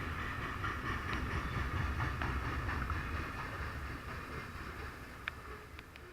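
Train rolling past on the rails: a steady low rumble and rail noise with scattered sharp clicks, growing fainter through the second half.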